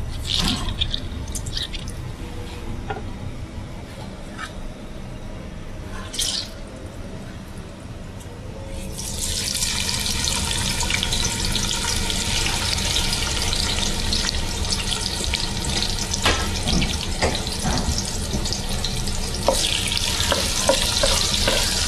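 Cubed aubergine frying in hot sunflower oil in a pot: a dense sizzle starts suddenly about nine seconds in and keeps going as the pieces are stirred. Before it come a few clinks of the pot and utensils.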